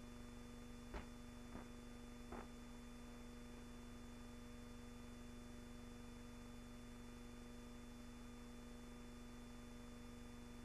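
Near silence: a low steady electrical hum over faint hiss, with three faint clicks about a second in, spread over a second and a half.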